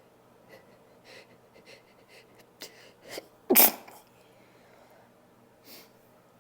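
A woman sneezing. A run of short, sharp breaths grows louder over about three seconds and breaks into one loud sneeze about three and a half seconds in. One short sniff follows near the end.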